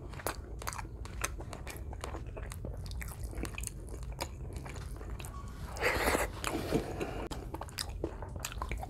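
Close-miked chewing of a mouthful of food: wet mouth clicks and smacks, many short clicks throughout, with a louder noisy bite or slurp about six seconds in.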